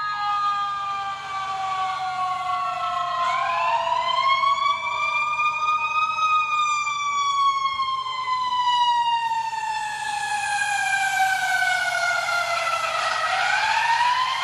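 Fire truck siren wailing. It winds up for about three seconds, coasts slowly down over about seven, then winds up again near the end.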